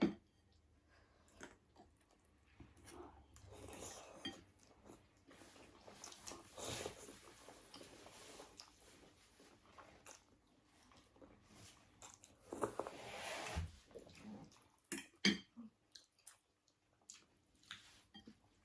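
Faint chewing and biting of food, with a few short clicks and clinks of dishes and cutlery, most of them in the last few seconds.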